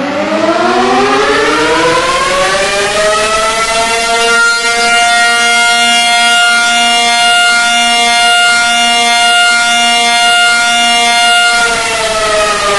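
Civil defence siren wailing: its pitch winds up over the first few seconds, holds a steady loud wail, then starts to wind down near the end.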